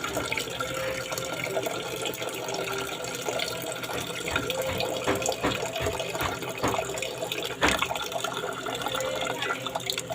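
Tap water running fast from a hose pipe and splashing steadily as it is poured through the nose in a nasal rinse (jal neti), with one sharp, louder hit about three-quarters of the way through.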